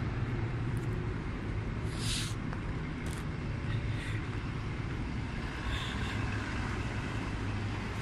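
Steady low drone of an idling diesel locomotive engine, with short hisses about two, three and four seconds in and again near the end.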